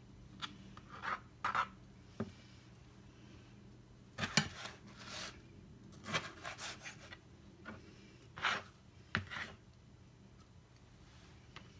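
Chef's knife cutting and dicing a tomato on a cutting board: irregular knocks of the blade against the board and scraping strokes, the loudest about four seconds in.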